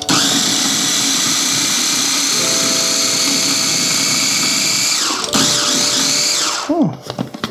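KitchenAid 3.5-cup mini chopper's motor running at speed, its blade chopping shallots and garlic into fine mince. It stops for a moment about five seconds in, runs again, then winds down with a falling pitch near the end.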